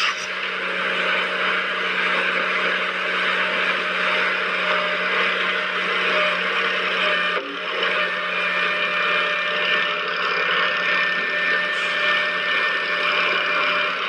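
Small electric motor of a toy machine running steadily with a hum and a whirring hiss, briefly dipping about seven seconds in, then going on with a thin high whine.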